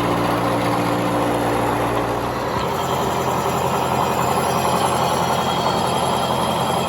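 Wheelabrator shot-blast machine running and blast-cleaning a railroad-track anvil: a steady motor hum under an even rush of abrasive noise. A couple of the low hum tones drop out about a second and two and a half seconds in.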